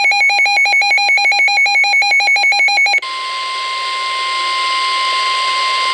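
A weather radio receiver's alarm beeps rapidly, about eight beeps a second, for about three seconds. It then switches abruptly to the broadcast: the NOAA Weather Radio warning alarm tone, one steady tone over radio hiss, signalling that a warning message follows.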